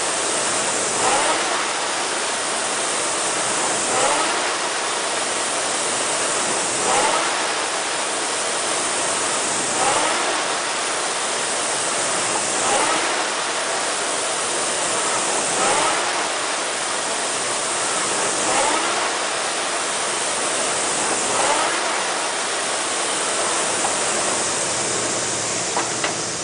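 Concept2 indoor rower's air flywheel whooshing steadily, surging with a short rising whine on each drive stroke about every three seconds, a low rate of about 20 strokes a minute. The strokes stop and the flywheel begins to spin down near the end as the 500 m piece finishes.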